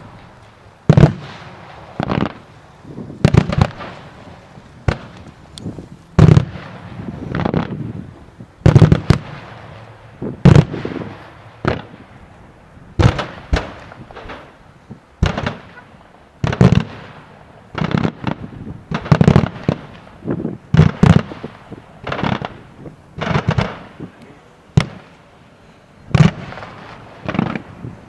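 Daytime fireworks: aerial shells bursting into coloured smoke in a steady barrage of loud bangs, roughly one a second, some in quick pairs, each followed by a short rolling echo.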